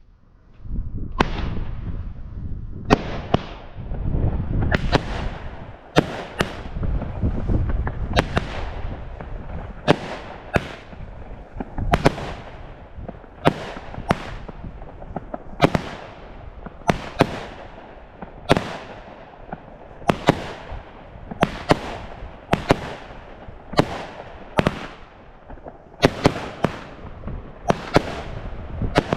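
Consumer firework battery firing after near silence: a run of sharp bangs, about one a second and sometimes two in quick succession, over a continuous rumble of launches and crackling bursts.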